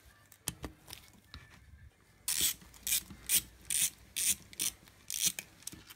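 Hand ratchet clicking as it loosens the bolts that hold the two crankcase halves of a 107–125 cc ATV engine together. After about two seconds, a run of short ratcheting strokes comes about two a second.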